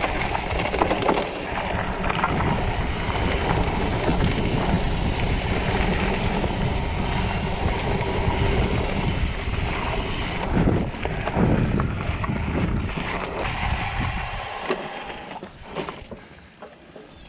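Wind rushing over a GoPro action camera's microphone as a rigid mountain bike rolls fast down dirt singletrack, with tyre rumble and rattles from the bike over rocks. About fifteen seconds in it dies down as the bike slows.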